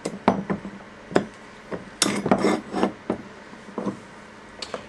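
Small clamps being set and tightened against a freshly glued wooden board: a string of separate wooden and metal clicks and knocks, with a denser rattle of handling about two seconds in.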